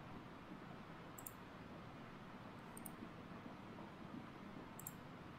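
Quiet room tone with three faint computer mouse clicks, about a second, three seconds and five seconds in.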